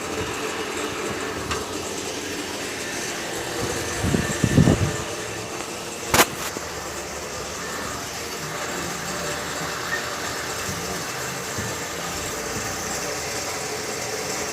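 Steady mechanical background hum, with a short clatter about four seconds in and one sharp knock about six seconds in, typical of parts and tools being handled during engine work.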